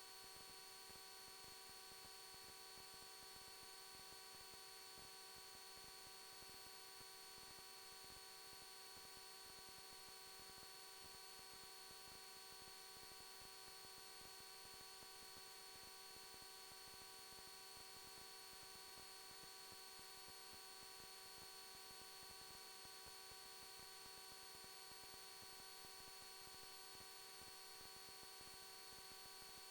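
Near silence, with a faint steady electrical hum and whine made of several fixed tones over a light hiss.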